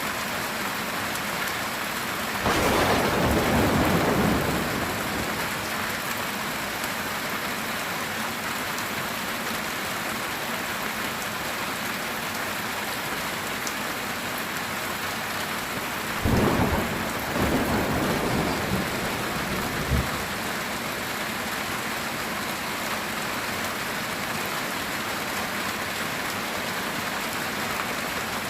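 Steady heavy rain drumming on a metal tin roof. A peal of thunder rolls through a couple of seconds in, and a second rumble comes past the middle, ending with a sharp crack.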